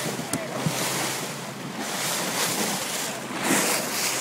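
Sea water rushing and splashing along a moving boat's hull as it cuts through the waves, swelling about once a second, with wind buffeting the phone's microphone. A single short tap comes about a third of a second in.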